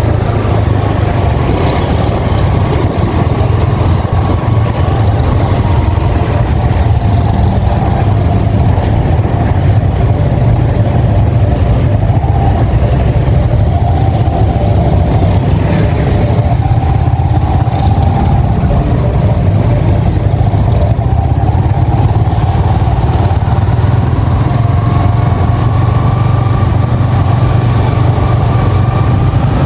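Yamaha XSR 155's single-cylinder 155 cc engine running under way, its note wavering with the throttle and climbing near the end, over a steady low rumble.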